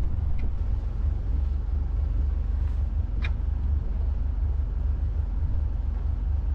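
Motor cruiser's inboard engine idling with a steady low rumble, warming up at rest, with a couple of faint clicks over it.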